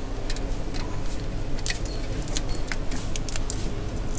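Scattered small clicks and taps of a thin sheet-metal shield being worked loose and lifted off a monitor's main board by hand, over a steady low hum.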